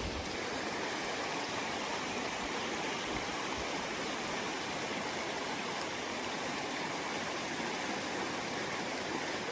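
Creek water running over rocks, a steady rushing.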